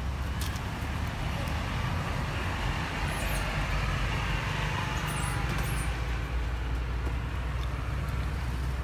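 Steady low background rumble with a hiss that swells through the middle and then fades, and a few faint high chirps.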